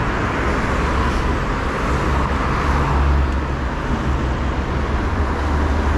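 Road traffic noise of cars passing on a city street, a steady noisy wash over a strong low rumble.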